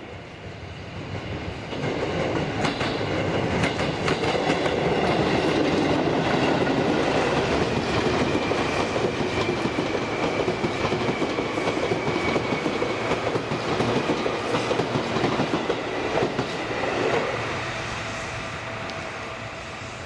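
Yellow Seibu Shinjuku Line electric commuter train passing close by, its wheels clacking over the rails. It grows loud about two seconds in and fades away after about seventeen seconds.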